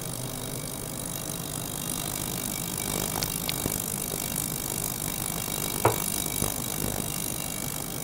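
Small ultrasonic cleaner running with a steady buzz while a small pump keeps a thin stream of water pouring into its tank. There are a few sharp clicks, around three seconds in and again near six seconds.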